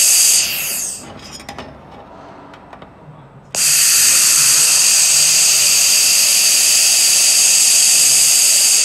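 Handheld 1000 W fiber laser welding gun hissing steadily as it welds steel plate. The hiss stops just after the start, tailing off with a falling pitch, and a few faint clicks follow. It starts again abruptly about three and a half seconds in, runs steadily and tails off again at the end.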